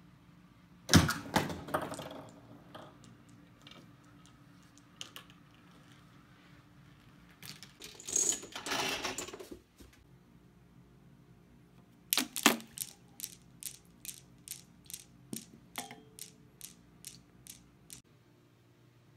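Knocks and clatter of a homemade Rube Goldberg machine's small parts falling and hitting each other: a sharp knock about a second in, then a rattling clatter of about two seconds. Past the midpoint, a Newton's cradle's steel balls clack evenly, about twice a second, fading away.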